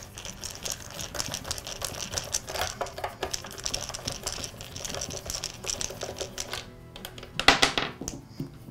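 Ratcheting screwdriver clicking quickly as it backs a screw out of the rear belt cover on a Makita DPC7311 cut-off saw. The clicking thins out, and a brief louder rattle follows about seven and a half seconds in.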